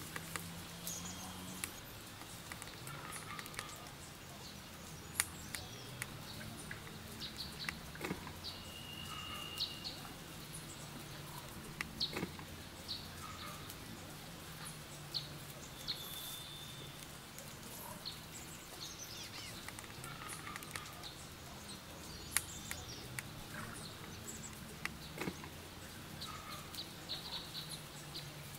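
Dry palm-leaf strips rustling and crackling in irregular clicks as they are handled and woven by hand, with birds chirping now and then in the background.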